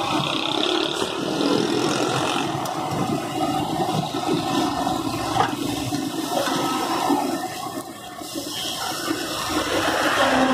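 Steady sizzling of round patties frying in shallow oil on a large flat iron griddle.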